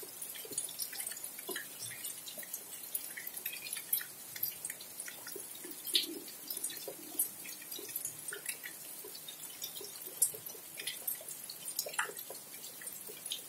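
Rain falling, with many irregular drops tapping and dripping close by over a steady hiss.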